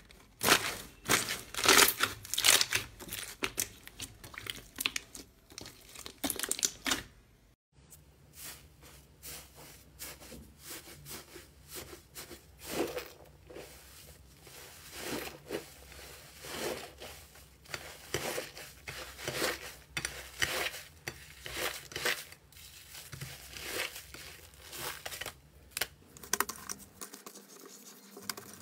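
Hands pressing and kneading a clear, bubbly slime, with dense crackles as the trapped air is squeezed. About 7 seconds in, pink foamy slime being stretched and squished on a plate, with softer crackly squelches repeating about once a second.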